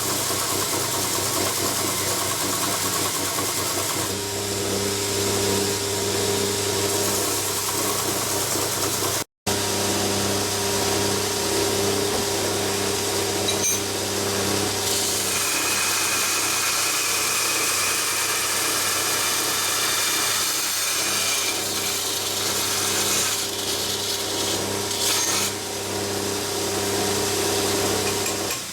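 Grinder running steadily while a forged W2 steel knife blank is ground to shape: a hissing scrape of steel on the abrasive over the motor's steady hum. The sound drops out for an instant about nine seconds in.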